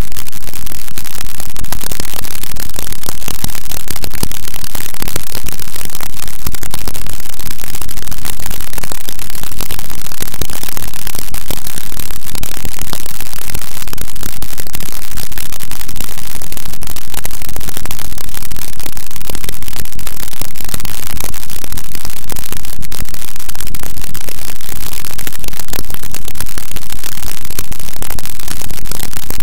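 Harsh noise music: a dense, very loud wall of static and distortion that fills the whole range and stays level throughout, with no beat, melody or voice.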